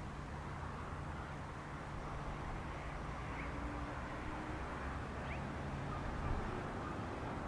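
Diesel freight locomotives idling with a steady low hum. A few faint, short high chirps sound over it.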